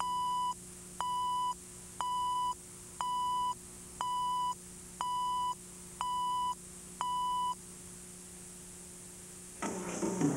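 Countdown leader beeps: eight identical steady beeps, one a second, each about half a second long, over a faint low hum. Music comes in near the end.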